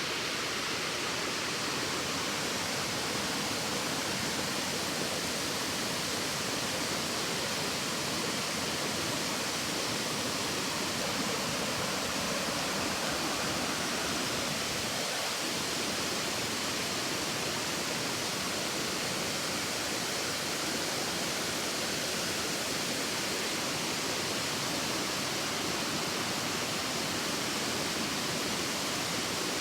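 Waterfall rushing as a steady, unbroken roar of falling water.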